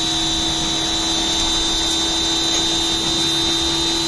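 Small 1800 PSI Ryobi electric pressure washer running steadily under load, its motor and pump holding one steady whine, while the short gun's 0-degree jet hisses out.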